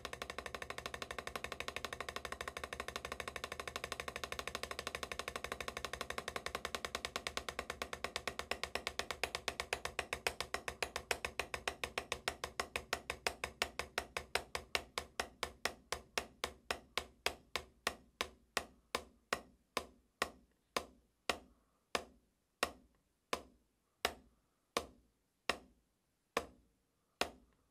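Wooden drumsticks striking a rubber drum practice pad in alternating single strokes, starting as a fast blur and slowing steadily until the strokes come a little over one a second near the end: a deceleration exercise. The strokes get somewhat louder as they slow.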